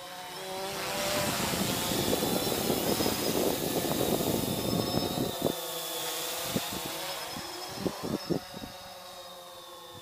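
Bayangtoys X21 brushless quadcopter's propellers buzzing as it flies in close past the microphone, the buzz wavering in pitch, building to its loudest in the middle and then fading as it moves away. Wind buffets the microphone while it is close, with a few sharp pops later on.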